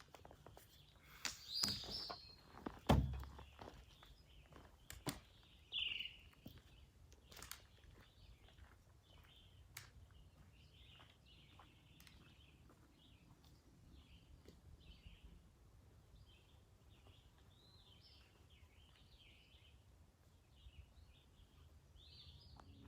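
Songbirds calling and singing in woodland, short chirps repeating throughout. A few sharp knocks in the first eight seconds, the loudest about three seconds in.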